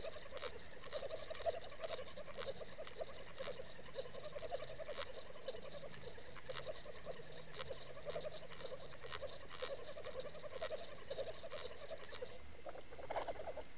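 Underwater sound picked up by a towed Water Wolf HD camera trolled behind a crankbait: a steady, rapidly warbling hum with light clicks scattered through it and a faint steady high whine.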